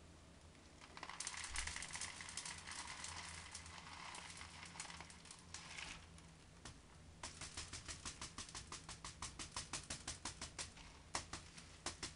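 LECA expanded clay pebbles being poured into an orchid pot, a dense rattling clatter for about five seconds. After a short pause comes a quick run of sharp clicks, about five a second, as the pebbles knock against each other and the pot while settling.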